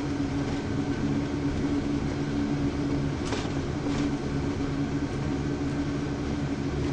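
Motor home running across an open steel grating bridge deck, heard from inside the cab: a steady hum from the tyres on the grate and the engine, over road noise. Two faint clicks come a little past three and four seconds in.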